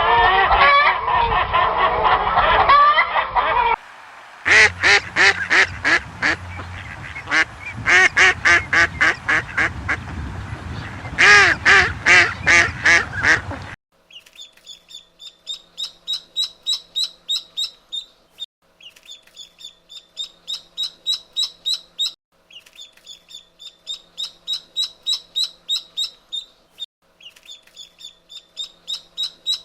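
A string of farm-bird calls. First a noisy flock lasts about four seconds. Then domestic waterfowl give loud, repeated quacking and honking calls in runs for about ten seconds. In the second half, rapid high-pitched peeping comes in runs of a few seconds with short breaks.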